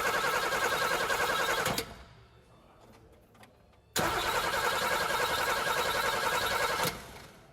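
A car engine cranking on its starter motor in two bursts, a rhythmic chugging that cuts off abruptly each time. The second burst starts suddenly about four seconds in.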